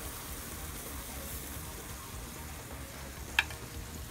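Rabbit pieces in barbecue sauce sizzling steadily on a barbecue grill, with one sharp click a little over three seconds in.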